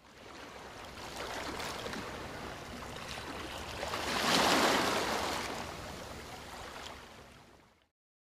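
Ocean surf sound effect: a wash of waves that swells to its loudest about halfway through, then fades away shortly before the end.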